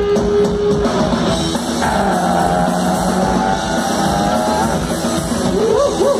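Live punk rock band playing loud through a PA: distorted electric guitars, bass and drum kit, with a quick string of short rising-and-falling pitched notes near the end.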